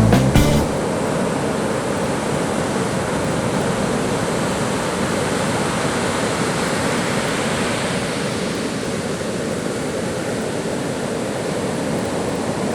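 Background music cuts off about half a second in, leaving a steady roar of ocean surf breaking on the beach.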